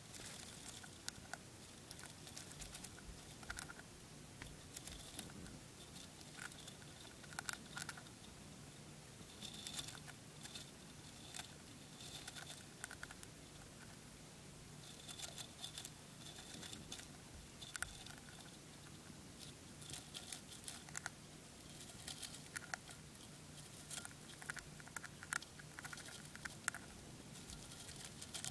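Winter white dwarf hamster nibbling spray millet: faint, irregular little clicks and crunches as it cracks and chews the millet seeds, several a second in places, with pauses between bouts.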